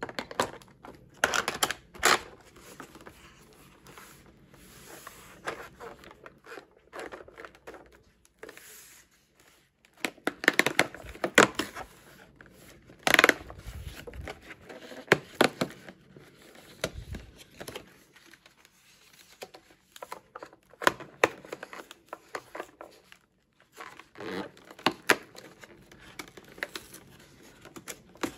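Perforated cardboard calendar doors being torn open and folded back by hand: irregular tearing and crinkling of card with scattered sharp clicks and scrapes as the doors come free.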